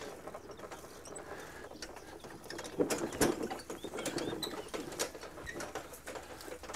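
Bicycle freewheel ratchet ticking as it coasts, with a towed wooden cargo trailer and its plastic crates rattling along behind; a louder clatter about three seconds in.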